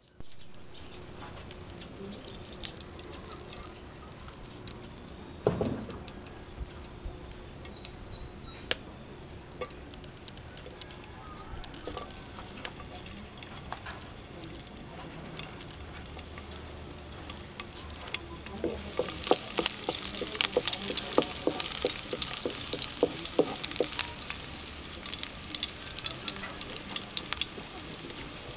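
Oil heating in a metal wok with faint scattered ticks and one sharp knock about five seconds in; about two-thirds of the way through, chopped garlic hits the hot oil and it starts sizzling with dense crackling that carries on to the end.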